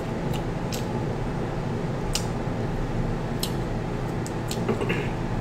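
Steady hum of an electric fan running, with a few sharp clicks from eating and picking meat out of crab shell by hand.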